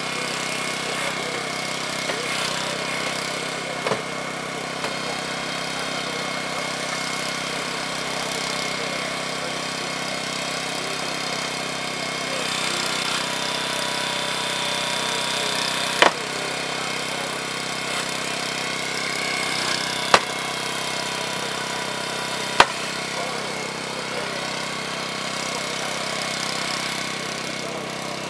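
Small engine of a hydraulic rescue-tool power unit running steadily, driving the cutters and spreaders used to free a person trapped in a crashed car. Three sharp snaps stand out about halfway through and in the seconds after.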